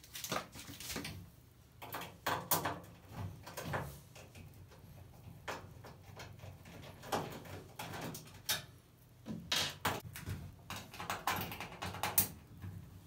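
Scattered knocks, clicks and clatter of a washing machine being handled, with no steady rhythm.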